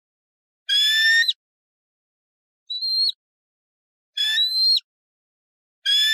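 Eagle giving high, whistled calls, each about half a second long with a slight upward slide, repeated every second and a half or so with silence between; the second call is shorter and fainter than the others.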